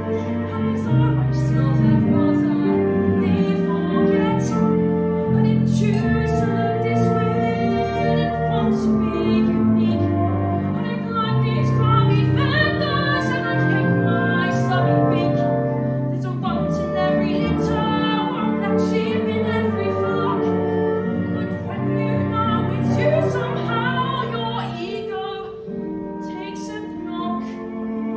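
Musical-theatre singing with instrumental accompaniment: a sung melody over sustained lower notes.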